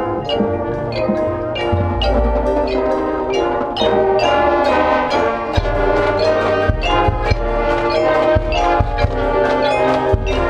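Marching band's brass section playing loud sustained chords over the percussion section's drum strikes, with heavy bass-drum hits underneath.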